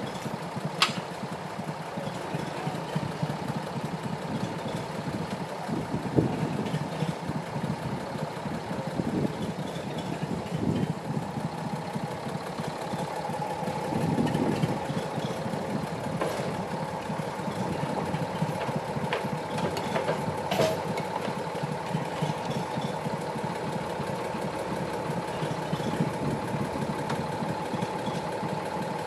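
Engine of a vintage cable-operated crawler face shovel running steadily as the machine slews and digs sand, with a steady whine over it and a few sharp clanks.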